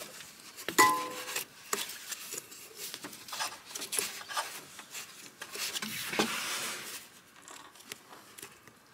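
Hands working a rubber part for the power steering back into place in a car's engine bay: rubbing and scraping of rubber against metal and plastic, with scattered small knocks and clicks.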